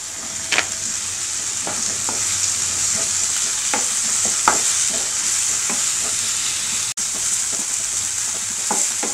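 Chopped tomatoes and onions sizzling in hot oil in a nonstick frying pan on a high flame, stirred with a wooden spatula that scrapes and taps the pan now and then.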